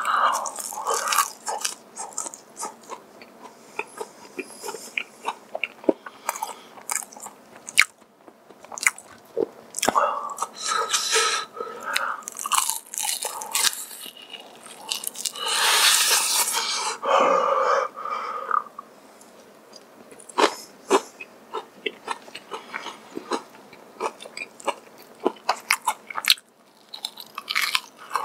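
Close-up biting and chewing of crispy honey-glazed fried chicken (Kyochon Honey Combo), with repeated crisp crunches and wet chewing. The loudest crunching comes about 15 to 18 seconds in.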